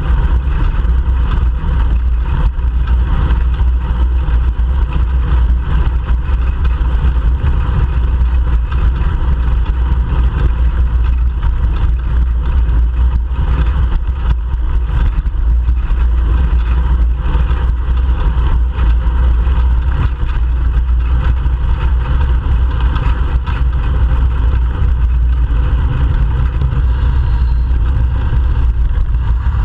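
Steady, loud low rumble of wind buffeting a bicycle-mounted GoPro Hero 3 Black's microphone while riding, mixed with the sound of nearby car traffic.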